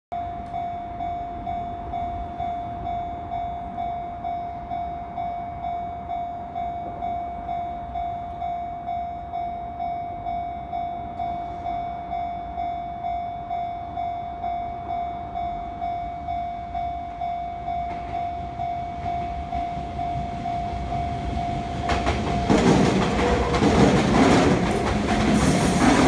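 Japanese level-crossing warning bell ringing steadily at about two strokes a second. About 22 seconds in, a Sotetsu 9000 series electric train arrives and passes close by, its wheels clacking over the rail joints and drowning out the bell.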